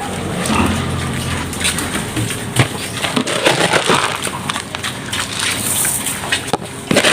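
Pigs eating dry feed from a trough: irregular crunching and clicking.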